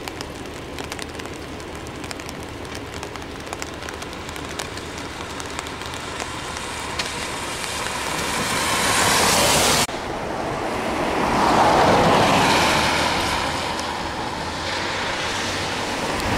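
Road noise from traffic on a wet, slushy road: a steady hiss of passing vehicles. One swells up and cuts off abruptly about ten seconds in, and another rises and fades about twelve seconds in.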